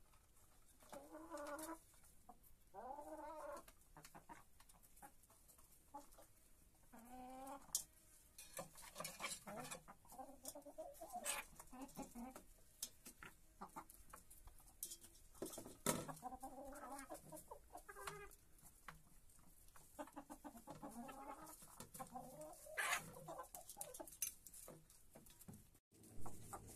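Domestic hens clucking in short bursts while they feed, with sharp clicks of beaks pecking at the food bowl.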